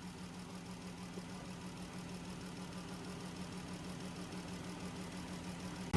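A steady low mechanical hum with an even pitch, unchanging throughout.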